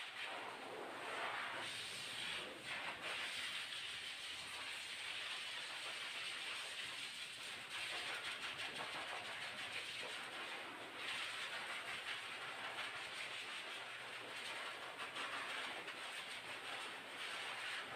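Handheld pet blow dryer blowing air, a steady rushing hiss that swells and dips as the nozzle is swept over the dog's coat, with a faint high whine running under it.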